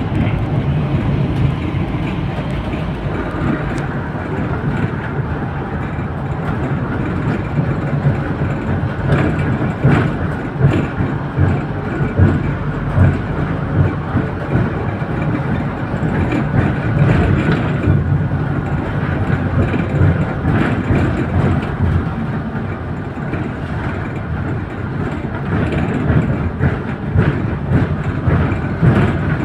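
Inside a moving bus: the diesel engine running steadily under road noise, with frequent short rattles and knocks from the bodywork.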